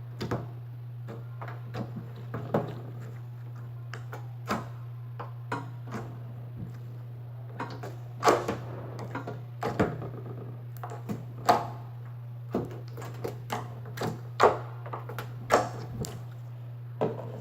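Slime being squeezed and pressed by hand, giving irregular clicking and popping sounds: the slime's "click". A steady low hum runs underneath.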